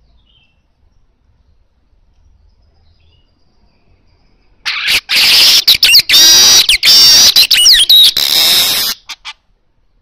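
A manyar weaver bird sings one loud burst of song of about four seconds, starting nearly halfway in: a rapid, harsh, buzzy chatter laced with high whistled glides, broken by short breaks and ending with two brief notes.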